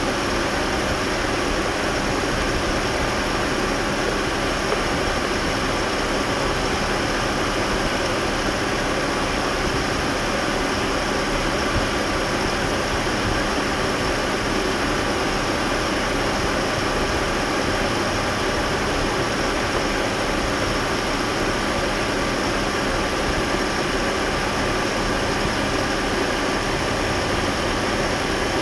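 Jaguar car engine idling steadily with a constant, unchanging drone and faint steady tones over it. The owner puts the noise down to the clutch.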